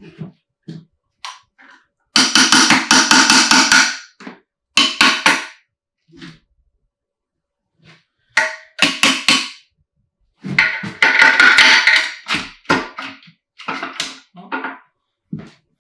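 Metal tool striking a stuck part of a BMW M50B25 engine during teardown, in rapid runs of ringing metallic taps and knocks. The hardest runs come about two seconds in and again about ten seconds in, with lighter single knocks between.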